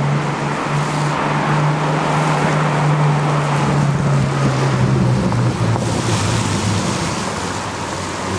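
Pagani Huayra's AMG twin-turbo V12 running at low revs with a steady drone, its pitch easing slightly lower about halfway through, under a haze of wind noise.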